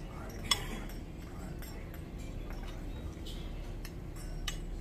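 Cutlery clinking against a dinner plate: a few short sharp clinks, the loudest about half a second in and another near the end, over a steady low background hum.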